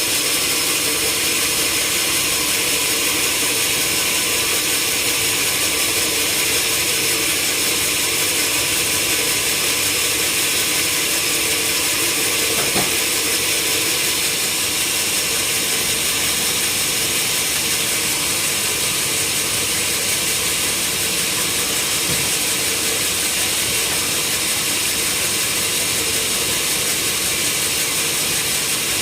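Sawmill machinery running steadily, a constant mechanical noise that is strongest in the high range, with one sharp click about halfway through.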